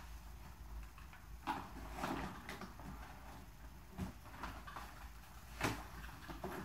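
Faint knocks and handling noises of a person moving about a small room, with a few sharper knocks, the loudest about five and a half seconds in.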